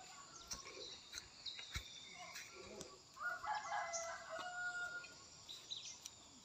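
A rooster crowing once, faintly, for about two seconds starting about three seconds in.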